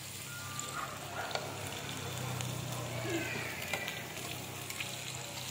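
Chicken and chopped meat sizzling steadily on a ridged tabletop grill pan, with a few light clicks of metal tongs moving the pieces.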